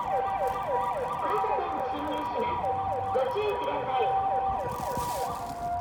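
Japanese ambulance's electronic siren in yelp mode: fast falling sweeps repeating about four times a second, with steady high and low two-tone notes sounding alongside.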